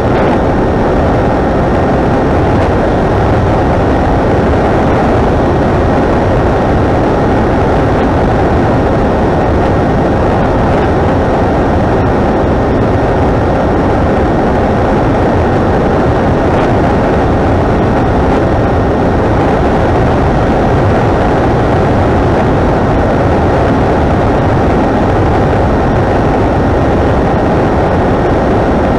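Steady rush of airflow over the onboard camera of an electric FPV flying wing in flight, with its brushless motor and propeller giving a faint steady whine underneath.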